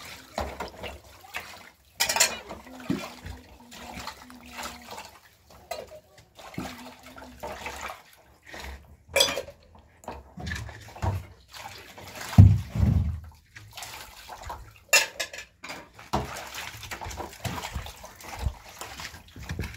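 Water splashing, with irregular clinks and knocks of dishes and pots and one heavier low thump about two-thirds of the way through.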